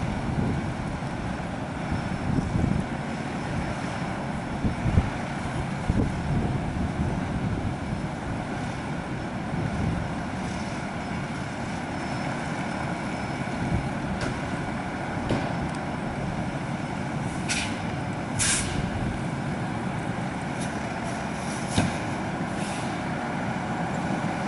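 Fire apparatus diesel engines idling steadily, with several short air-brake hisses; the two loudest come about two-thirds of the way through.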